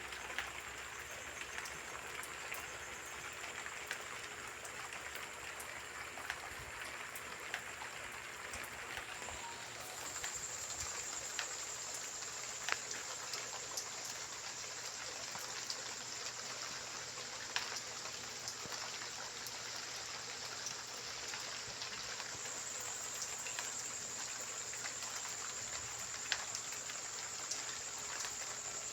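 Steady rain falling, with single drops ticking sharply now and then. A steady high-pitched tone runs alongside and grows louder about ten seconds in.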